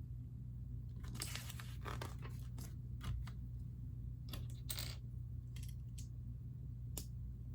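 Small plastic Lego pieces clicking, rattling and rustling in the hands as they are fitted onto a tiny build: a scatter of short clicks and brief scraping handling sounds over a steady low hum.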